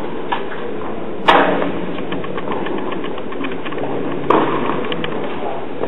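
Tennis ball struck by a racquet twice, about three seconds apart. The first hit is the louder, and each rings with a short echo in an indoor hall, over a steady background noise.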